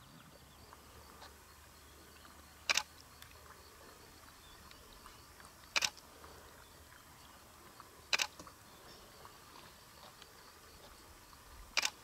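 Camera shutter clicking four times, one shot about every three seconds, over faint quiet bush ambience.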